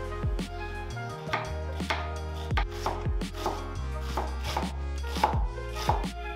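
Chef's knife chopping an onion on a wooden cutting board, sharp strikes about two a second starting about a second in, over steady instrumental background music.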